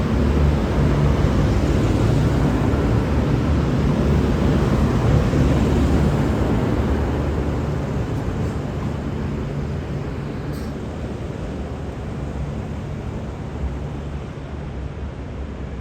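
V/Line VLocity diesel multiple unit running out of the station: a steady diesel engine and wheel rumble that fades gradually as the train pulls away. A single short click about ten seconds in.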